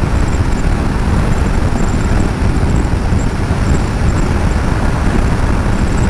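Steady wind rush and road noise on a moving motorcycle's onboard microphone.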